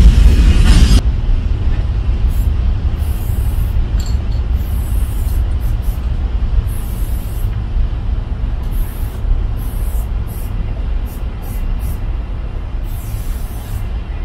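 Aerosol spray-paint can hissing in short on-and-off spurts as paint is sprayed onto a freight wagon, over a steady low rumble. A louder broad noise cuts off about a second in.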